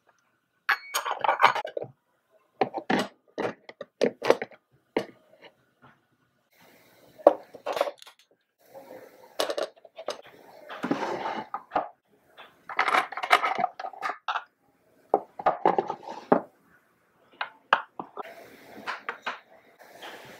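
Miniature metal pot and its lid clinking and knocking as they are handled: the lid set on and the pot set down on a toy stove. Separate clatters and short scrapes come in bursts, with pauses between.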